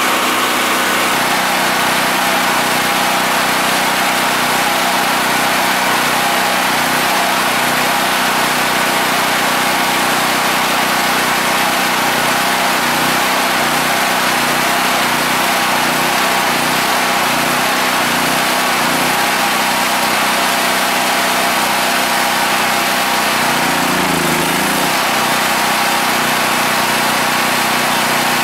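Yamakoyo SH7000DXE generator's 13 hp single-cylinder YK1300 engine running at a steady level, its low note pulsing slightly for several seconds in the middle. It is still burning the gasoline left in the carburetor before being switched over to natural gas.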